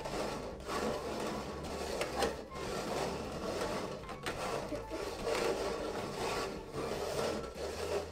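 Red plastic cups slid and scraped across a tabletop as they are shuffled, a continuous rubbing with a few light knocks as the cups bump.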